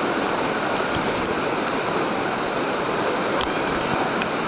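Whitewater rapids rushing in a steady, unbroken wash of water noise.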